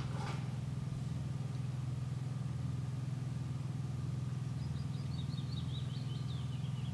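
A steady low mechanical hum with a fine pulsing texture. Near the end it is joined by a quick run of high chirps that slowly fall in pitch, and there is a brief falling sweep right at the start.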